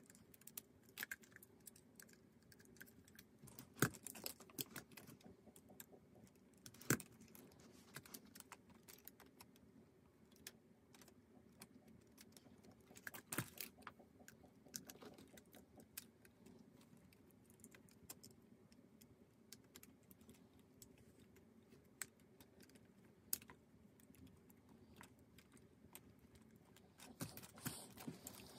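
Scattered sharp clicks and light rattles of Lego Technic plastic parts being handled and pressed together, with a few louder snaps among them, over a faint steady hum.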